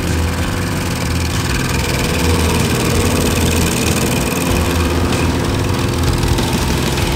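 Ventrac KC220 stump grinder running on its tractor, the engine and the spinning carbide-toothed 22-inch cutting rotor making a steady, even drone.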